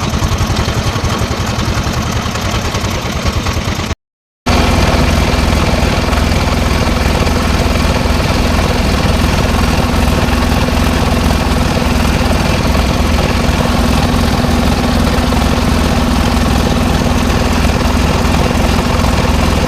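Small engine running steadily. The sound cuts out for a moment about four seconds in and comes back a little louder, as a steady drone.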